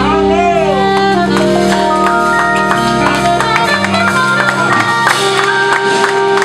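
Live band playing an instrumental passage: a lead line of held notes that opens with a bending, falling phrase, over a steady bass and drum beat.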